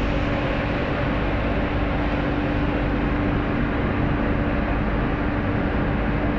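Ferry under way: a steady, unchanging drone of engines and machinery with a constant low hum.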